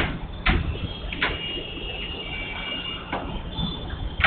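Classroom room tone: a steady low hum with a faint high whine, broken by a few short, sharp knocks, one about half a second in, another just after a second, one a little after three seconds and one near the end.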